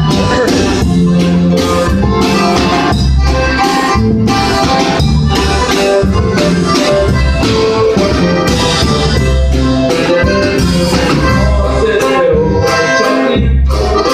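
Loud live band playing a norteño song, with a drum kit keeping a steady beat under pulsing bass and an accordion melody.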